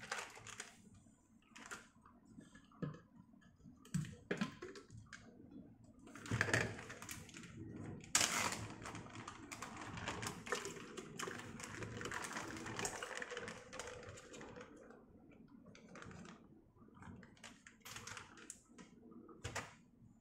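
Kitchen handling: knocks and clicks as a glass blender jar is opened and soft orange food chunks are dropped into it, with a longer stretch of scraping and rustling in the middle.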